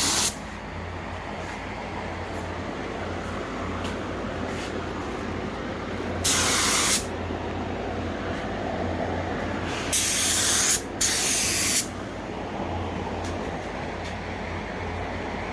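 Short bursts of compressed air hissing from an air gun: three bursts of under a second each, the second and third close together, over a steady low hum.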